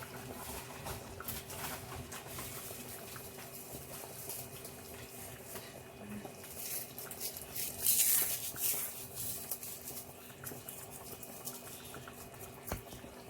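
A pot of egusi soup simmering on the stove, with irregular small pops and spatters and a louder burst of hissing about eight seconds in. A faint steady hum runs underneath.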